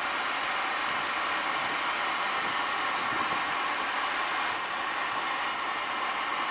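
Steam hissing steadily from the safety valve of a Kitson & Co 0-6-0T steam tank locomotive, blowing off while the valves are being set during its steam test.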